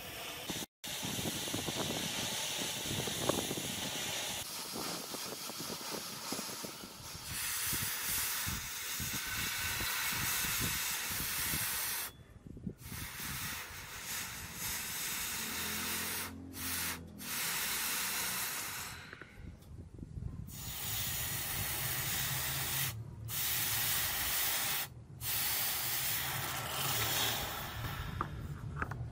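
A gas torch flame hissing against a steel axe blade, then the hot blade hissing and sizzling as it is quenched in a tub of water to harden it.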